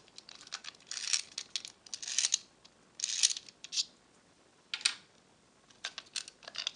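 Vintage LEGO clockwork wind-up motor being wound with its key, tightening the spring: short bursts of ratchet clicks about once a second.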